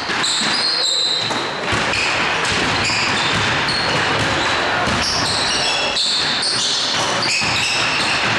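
Basketball play on an indoor court: the ball bouncing on the floor and short, high sneaker squeaks over the steady noise of the hall.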